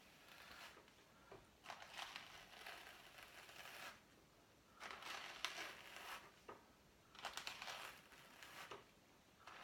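Wire-toothed wooden hand cards brushing sheep's wool, soft scratchy strokes in three runs of about two seconds each, as the wool is carded fluffy.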